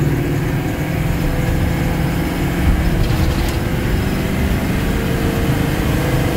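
A 1997 Chevrolet van's 6.5-litre turbo diesel V8 running under way as the van accelerates: a steady low drone with a tone that rises slowly in pitch. The engine pulls without stumbling, now that a new lift pump holds the fuel pressure.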